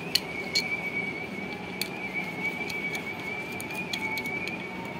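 A screwdriver backs a screw out of a small plastic box, giving scattered small clicks and ticks. A steady high-pitched tone hums in the background.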